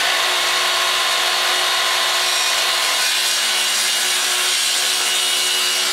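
Festool HKC 55 18-volt cordless circular saw running steadily at full speed, its blade cutting through a wooden board.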